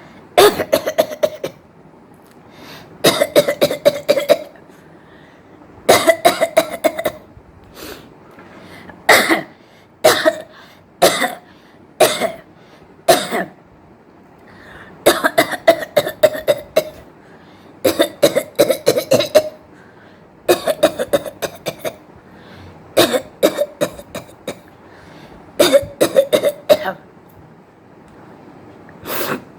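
A woman coughing on purpose, in about a dozen bouts of several quick, sharp coughs each, with short pauses between the bouts.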